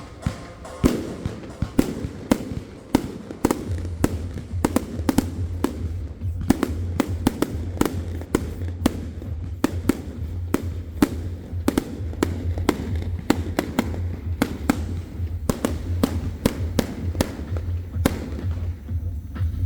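Fireworks going off in a rapid series of sharp bangs, several a second, with music playing and a steady bass coming in about four seconds in.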